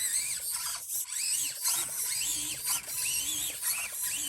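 Small electric motors of an Axial SCX24 micro RC crawler whining in repeated short bursts, each rising and falling in pitch, as the newly fitted rear steering is put to work.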